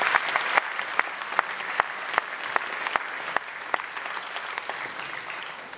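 Audience applauding, a dense patter of hand claps with single sharp claps standing out, slowly dying down near the end.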